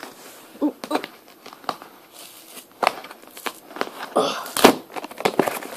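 Cardboard mailing box being handled and torn open along its tear strip: scattered rustles and knocks, with a longer ripping of cardboard about four seconds in.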